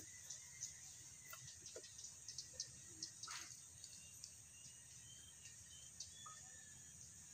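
Faint outdoor ambience: a steady high insect drone with a few faint bird chirps and scattered light clicks.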